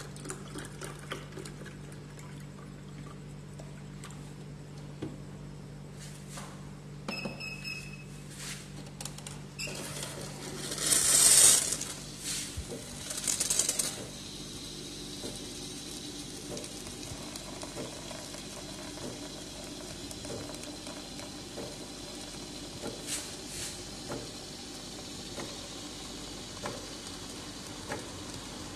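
Milk poured from a carton into a glass, then a short beep. Around ten seconds in, the Otten 708 espresso machine's steam milk frother starts with a loud sputtering hiss, then settles into a steadier, quieter hiss as it draws milk up a tube and froths it into a steel pitcher.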